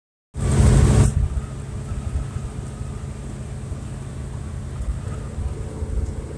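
Cab interior of an Argosy 28 motorhome cruising on the highway: a steady low engine and road drone. A loud rushing noise in the first second drops back to the drone.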